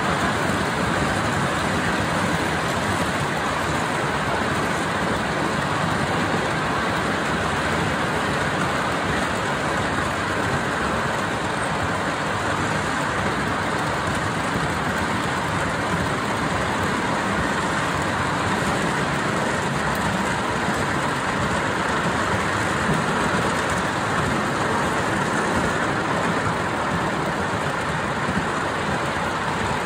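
A 5-inch gauge miniature steam train, hauled by an 0-4-0 locomotive, running steadily along the track: a continuous, even running noise that holds at one level throughout.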